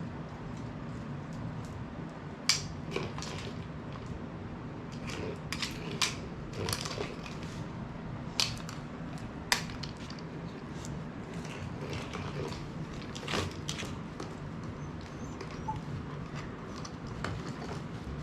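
A Siberian husky eating dry kibble from a food-dispensing ball toy. It makes irregular crunches and sharp clicks, a few of them loud, over a steady low hum.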